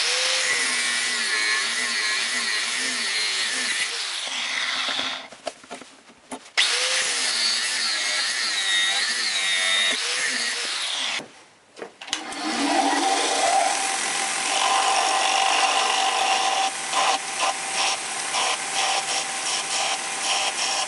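Angle grinder with a cutting disc cutting through a steel connecting rod, its whine wavering under load, in two passes with a short break about five seconds in; it stops about eleven seconds in. A belt grinder then starts up and runs steadily, with the rod held against it.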